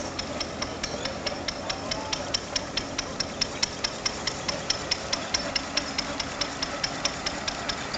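Vendeuvre threshing machine running, belt-driven by a Bruneau stationary engine: a steady mechanical hum with a rapid, even clicking about five times a second.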